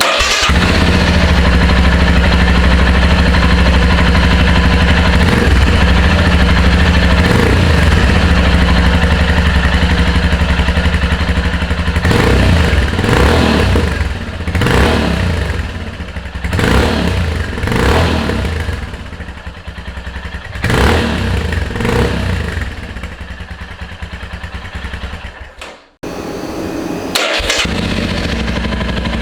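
Royal Enfield Himalayan's single-cylinder engine, fitted with a Red Rooster Performance slip-on exhaust, starting up and idling steadily. From about twelve seconds in, the throttle is blipped six or seven times in quick revs. After a brief break near the end it idles again.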